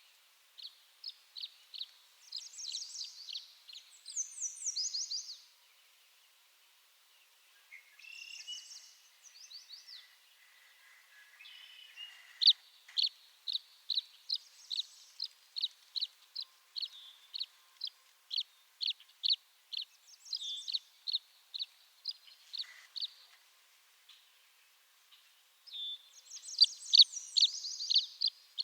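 Tree swallow calling: a long series of short, high chirps, two or three a second, broken near the start, in the middle and near the end by denser, jumbled warbling phrases.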